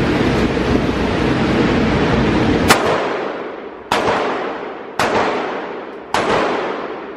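Gunshots from shooters in the lanes of an indoor range: about four sharp reports, roughly a second apart, starting a little under three seconds in, each ringing out in the hall's echo. Before them a loud, steady rushing noise fades away.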